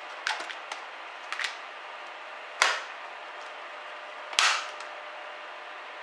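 Retaining clips of a Dell XPS 14z's bottom cover snapping loose as the cover is pried off by hand: a few small clicks in the first second and a half, then two loud snaps nearly two seconds apart.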